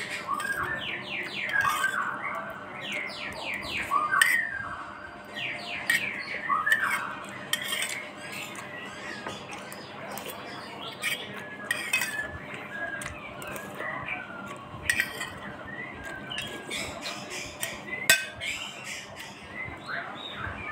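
Clinks and knocks of spoons and dishes, with squawking, chirping bird calls in runs of quick sweeps. The calls are thickest in the first several seconds and more scattered after that.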